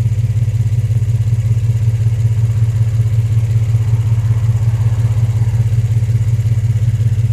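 The 3.5-litre V6 engine of a 2003 Infiniti G35 idling with a steady, even low drone.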